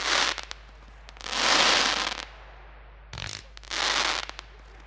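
Aerial fireworks shells bursting into crackling glitter stars: a sharp burst at the start, then waves of dense crackle, the loudest about a second and a half in, and a short pop near three seconds followed by another wave of crackle.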